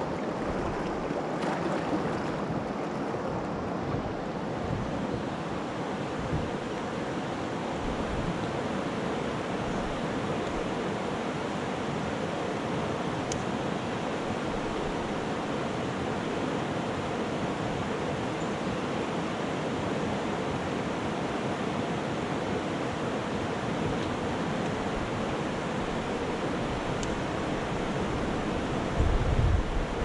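River rapids: fast water rushing over rocks in a shallow riffle, a steady, even rush. A few low thumps come near the end.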